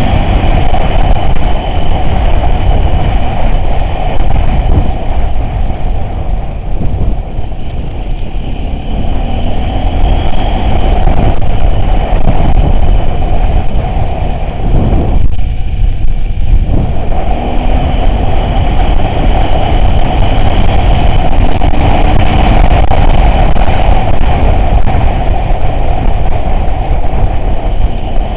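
Off-road vehicle's engine running steadily under the rumble and rattle of driving, loud throughout, easing off briefly about halfway through before picking up again.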